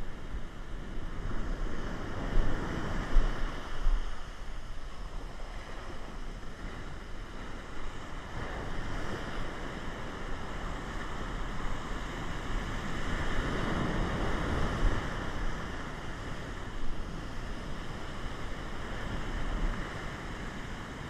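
Heavy ocean surf breaking and washing up over the sand around the angler's feet, with wind rumbling on the microphone. The wash swells a couple of seconds in and again around the middle.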